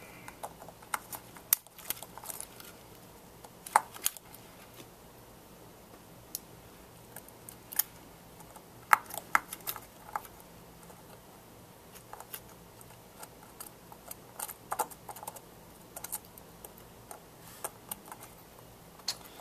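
Irregular small clicks and taps of a precision screwdriver and tiny screws on an iPhone 5's metal housing as screws are taken out and the phone is handled.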